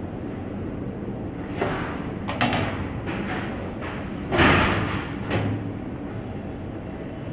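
A steady low rumble with a handful of knocks and thuds; the loudest, a heavier thud with a short clatter after it, comes a little past the middle.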